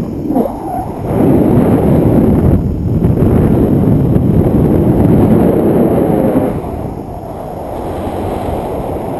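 Wind rushing over an action camera's microphone in flight, a heavy low buffeting that swells about a second in and eases off about two thirds of the way through.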